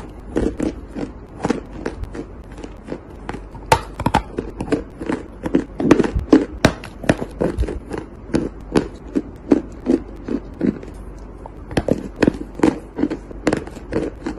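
Edible chalk being bitten and chewed close to the mic: rapid, crisp crunches, about three a second.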